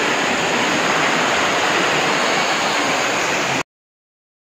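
A small stream rushing steadily over rocks in a narrow channel; the sound cuts off abruptly about three and a half seconds in.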